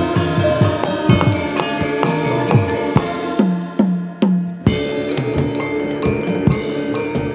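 Kuda kepang ensemble music: busy hand-drum strokes that slide down in pitch, over steady ringing metal percussion tones. About three and a half seconds in, three sliding drum strokes lead to a brief drop, then the full ensemble comes back in.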